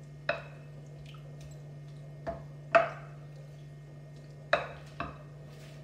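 A spoon knocking against a ceramic bowl while raw chicken is stirred into a spice marinade: five sharp clinks, the loudest about three seconds in, over a steady low hum.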